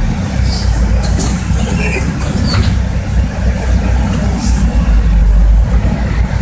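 Cabin of a Bogdan A09204 bus in motion: the diesel engine's steady low drone, with a few brief sharp rattles.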